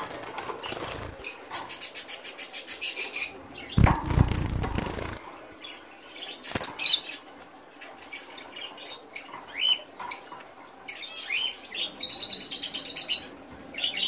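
White zebra finches giving short, sharp chirping calls while being caught and held in the hand. There are two brief flurries of rapid, even pulses, about a second in and near the end, and a loud handling bump about four seconds in.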